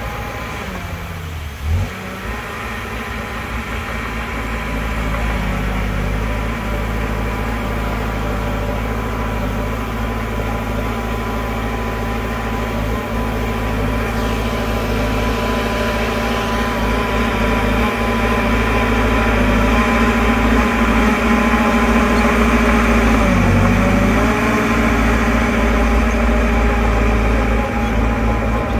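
Heavy diesel engine of earthmoving machinery running steadily under load, its pitch dipping briefly about two seconds in and again late on.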